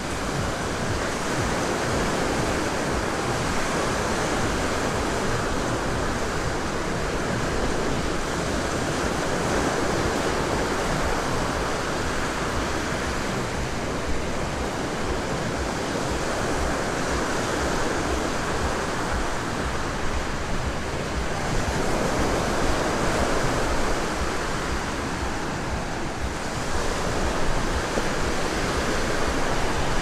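Small Black Sea waves breaking and washing up a sandy beach: a steady rush of surf that swells a little a few times.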